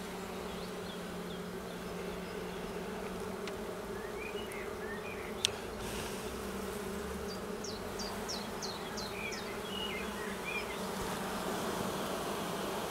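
Honeybee colony buzzing steadily from an open hive as its frames are handled. A single sharp click comes about five and a half seconds in, and a few faint high chirps sound in the background.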